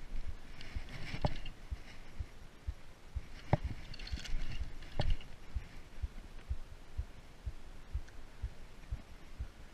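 Handling noise from an angler winding a spinning reel and working the rod: regular low thumps about three times a second, with a few sharper clicks and short hisses in the first half.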